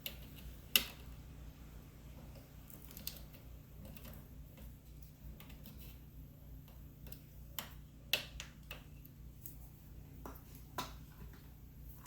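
A few scattered sharp clicks and light taps of small items being handled on a work table, loudest about a second in and again around eight seconds in, over a low steady hum.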